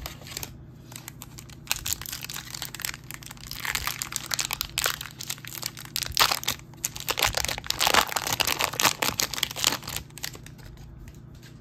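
Topps Chrome F1 trading-card pack wrapper being crinkled and torn open. Dense crackling starts about two seconds in, is loudest in the second half and dies away near the end.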